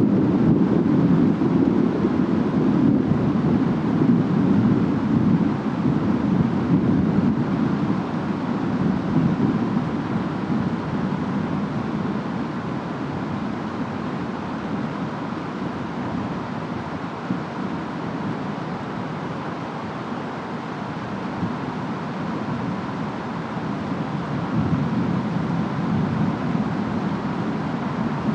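Steady storm ambience of rain and wind, with a low rumble that swells over the first several seconds, eases, and builds again near the end.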